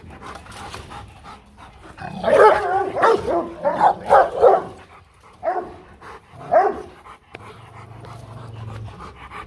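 Rottweiler threat-barking at a rival dog: a quick run of deep, loud barks about two seconds in, then two single barks.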